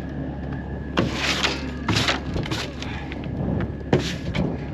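A diesel truck engine idling steadily, with about five sharp scraping and knocking strokes over it, from gravel and wood being cleared off a trailer deck.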